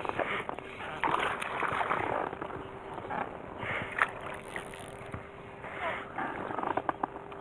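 Water splashing and sloshing in irregular surges as a hooked black bass fights at the surface on a fly line.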